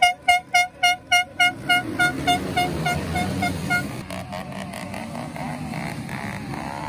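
A horn sounding a rapid series of short toots, about three a second, growing fainter and stopping about four seconds in. After that, engines rise and fall in pitch in the background.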